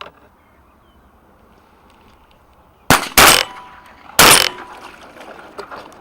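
Three shotgun shots fired at ducks: two close together about three seconds in, then a third about a second later, each with a short echo.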